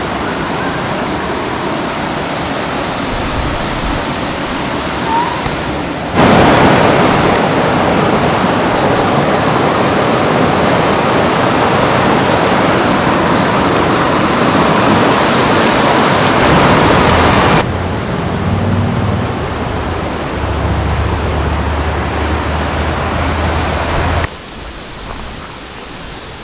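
Steady rushing noise of water, heard as a series of edited clips: it jumps louder about six seconds in, drops back a little near eighteen seconds, and turns much quieter near the end. A low drone joins it for a few seconds before the last cut.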